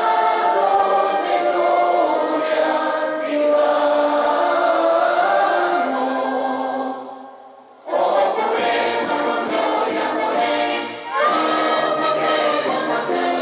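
Choral singing in sustained chords that breaks off briefly about seven seconds in and then starts again.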